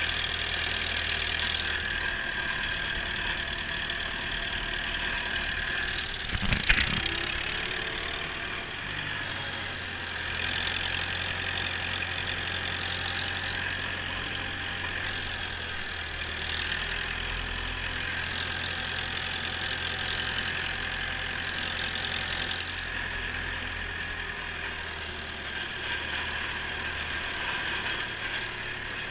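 Massey Ferguson 165 tractor engine running steadily under load, pulling a Dalbo field roller, with one sharp clunk about six and a half seconds in.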